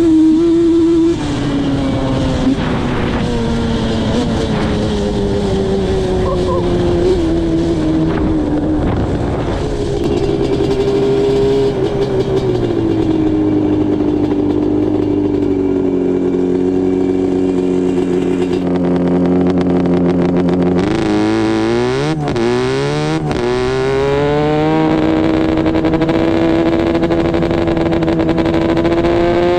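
Yamaha Banshee 350's parallel-twin two-stroke engine under way on the quad. The revs sink and hold steady for a long stretch, then climb in several quick rising sweeps about two-thirds of the way through before settling at a steady higher pitch.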